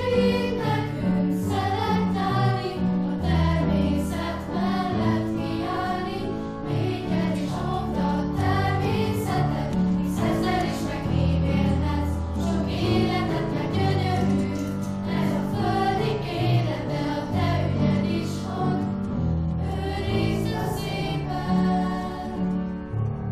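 Music: a group of voices singing in chorus over an instrumental backing track with bass.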